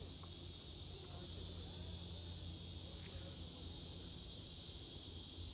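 Steady chorus of insects such as crickets, a continuous high-pitched buzz that does not let up, over a low steady hum.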